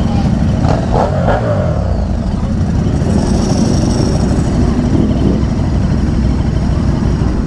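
Motorcycle engines running at low speed, close by, with a brief rising and falling rev about a second in.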